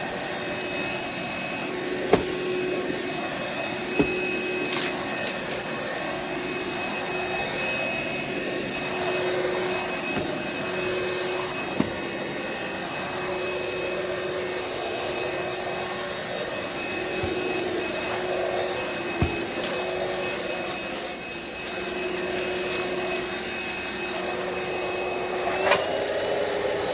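Cordless stick vacuum cleaner (ROOMIE TEC SlimVac) running steadily over a kitchen floor, with a steady motor hum and a higher whine, and a few sharp clicks as it picks up debris. Its pitch steps up slightly near the end.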